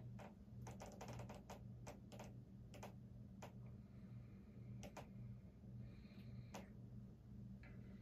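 Faint, steady low hum of a 56-inch Banvil Envirofan Silverline industrial ceiling fan running, swelling and fading about every two-thirds of a second. Scattered faint sharp clicks sound over it.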